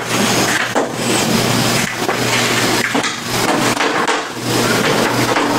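Several light knocks and handling sounds from the plastic back cover of a large LCD TV being shifted and pressed on a table, over a steady hiss and low hum.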